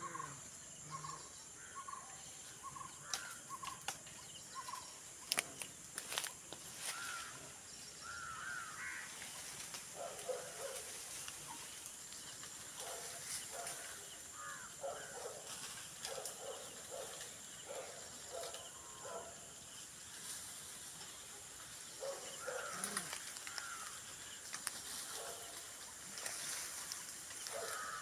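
Animal calls from the treetops: runs of short repeated calls, several a second, coming in bursts, with a few sharp clicks about five to six seconds in and a thin steady high tone underneath.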